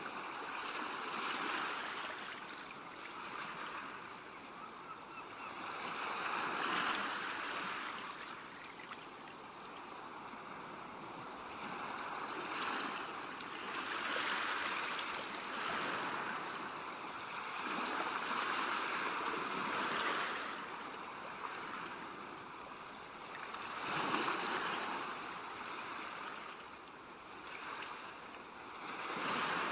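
Ocean waves breaking and washing ashore, a continuous rush of surf that swells and eases every four to six seconds.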